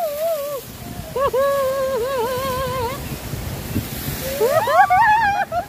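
Rushing water and wind noise on the microphone aboard a river-rapids raft ride. Long wavering melodic notes come in twice, the second time as rising glides near the end.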